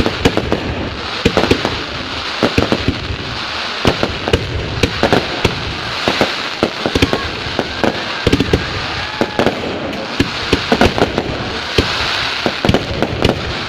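Fireworks going off without pause: many sharp bangs in irregular clusters over a steady hiss.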